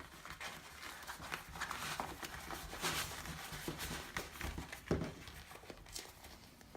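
Faint handling noise from a screwdriver set in its tool roll: rustling with scattered light knocks and clicks, and one sharper knock about five seconds in.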